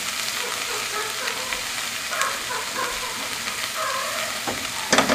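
Diced potatoes, carrots and onions sizzling in a stainless steel pot while a wooden spoon stirs them, with one sharp knock near the end.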